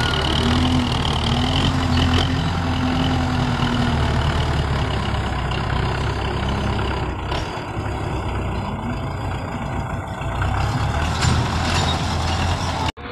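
Belarus tractor's diesel engine running steadily while it works a front blade through loose earth, a deep hum with the engine note wavering in the first few seconds.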